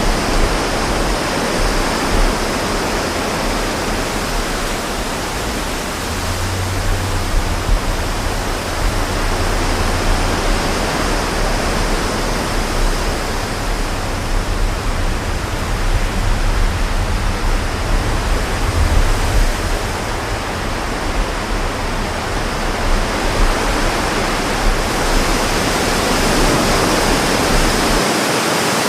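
Strong wind blowing steadily, buffeting the microphone with an uneven low rumble that drops away near the end.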